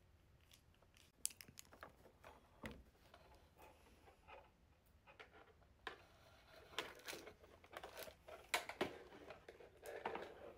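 Faint, irregular clicks and taps from hands and long acrylic nails handling nail supplies and a UV/LED nail lamp, busier in the second half.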